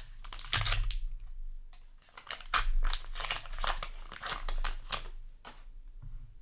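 Foil booster pack wrapper being torn open and crinkled by hand: a run of short crackling, rustling tears, a brief one about half a second in and a busier stretch from about two seconds until near the end.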